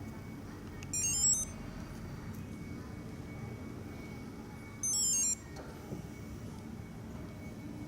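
Two short electronic beep melodies, quick runs of high stepped tones, about four seconds apart (about a second in and about five seconds in), from a Yupiteru VE-E9900st remote engine starter's answer-back remote as the remote start is triggered, over a steady low hum.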